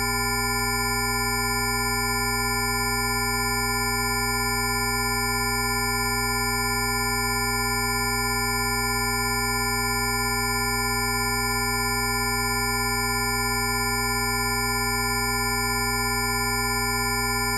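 Rife frequency tones: several pure electronic sine tones at different pitches, from a low hum up to a high whistle, sounding together and held perfectly steady without any change.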